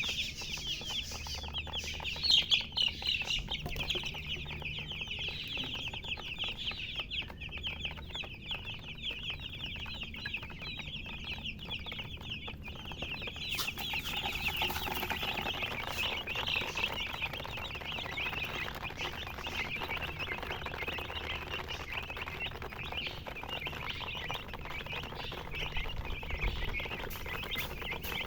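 A brood of baby chicks peeping continuously, a dense chorus of rapid high-pitched chirps that swells again about halfway through.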